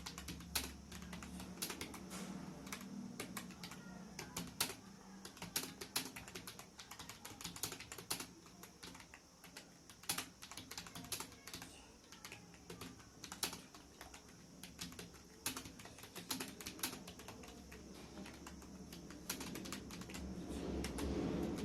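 Fast, continuous typing on a computer keyboard, with irregular key clicks several times a second during a timed typing test. Near the end, a low hum grows louder underneath.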